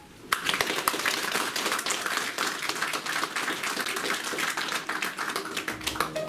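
A small audience applauding with hand claps, starting just after the beginning and stopping near the end as piano music comes in.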